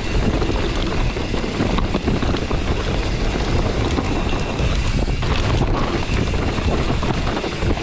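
Wind rushing over the action camera's microphone as a mountain bike descends a rocky trail, with a steady low rumble and a constant run of small knocks and rattles from the bike and tyres over loose stones.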